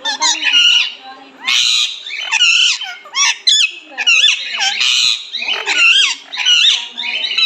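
Green parrot calling and chattering: a rapid string of short, high, whistling and squawking calls that bend up and down in pitch, one after another with brief gaps.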